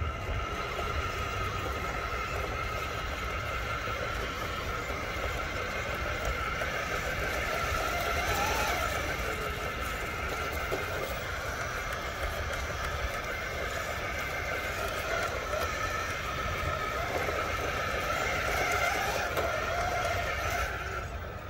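Cross RC Demon SU4 crawler's brushless motor and geared transmission whining steadily as the truck crawls slowly up a rock.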